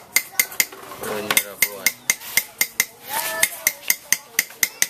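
Hammer tapping on metal in a quick, even rhythm, about four strikes a second, each with a short metallic ring.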